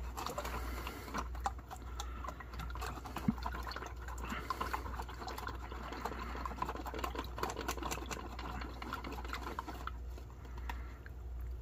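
Water and powdered drink mix sloshing inside a foil ration pouch as it is worked by hand to mix it, the foil crinkling with many small crackles.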